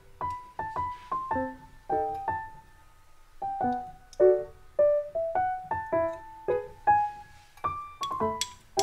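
Background music: a keyboard plays a light melody of short, separate notes, with a brief lull about three seconds in.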